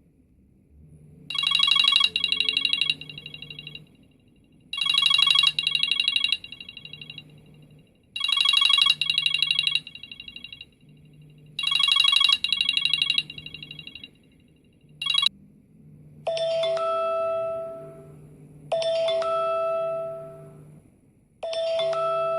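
iPhone ringtones. First a rapid trilling ring plays four times, about every three and a half seconds. After a short blip a second ringtone begins: chiming notes that die away, repeating about every two and a half seconds.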